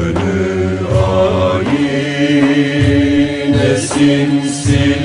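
Turkish Sufi hymn (ilahi) music: a held, chanted vocal line over a low accompaniment, with a low beat about once a second.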